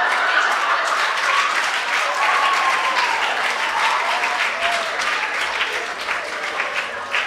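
Audience applauding with dense clapping and a few voices in the crowd, dying down gradually near the end.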